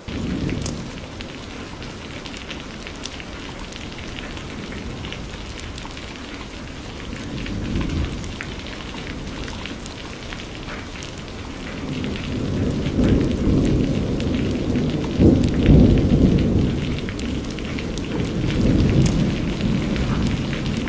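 Steady rain falling, with individual drops ticking sharply through it. Thunder rumbles low in the background: briefly about a third of the way in, then a long, louder roll through most of the second half.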